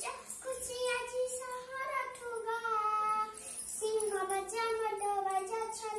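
A young girl chanting in a high, sing-song voice, with long held notes between quicker syllables.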